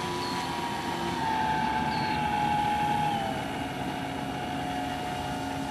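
Electric motors and propellers of a large four-engine model Hercules airplane running with a steady whine that drops in pitch about a second in and again about three seconds in.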